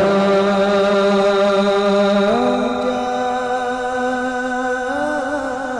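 A man reciting the Quran in the melodic, drawn-out tilawah style: long held notes, the pitch stepping up about two seconds in and turning in a wavering ornament near the end.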